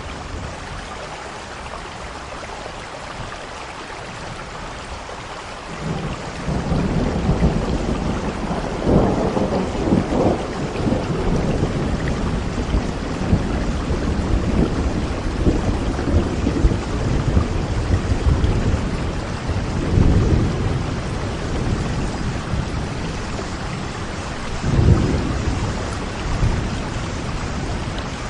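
Steady rain hissing, with thunder rumbling in about six seconds in and rolling on, swelling into several louder peals.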